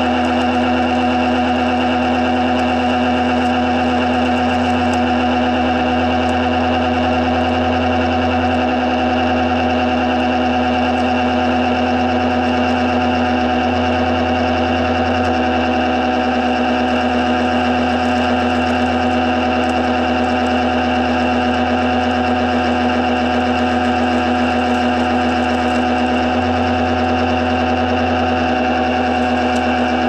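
Kirby upright vacuum cleaner running steadily while being pushed over carpet, a constant motor whine over a strong steady hum.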